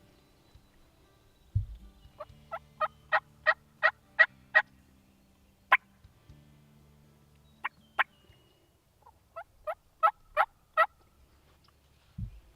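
Turkey yelping: two runs of sharp, evenly spaced yelps, about three a second and growing louder through each run, with a few single yelps between. A low thump comes about a second and a half in and again near the end.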